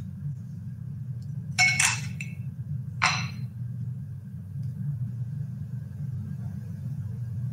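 A drinking glass clinking twice as it is handled, about a second and a half apart, over a steady low hum.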